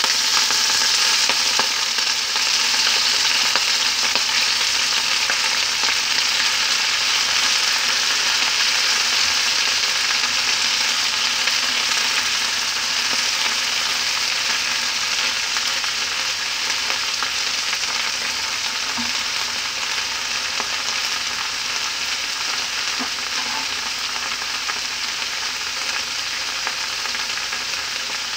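Radish leaves sizzling in hot oil in a frying pan while being stirred with a spatula. The sizzle is loudest right after the leaves go in and slowly dies down as they cook.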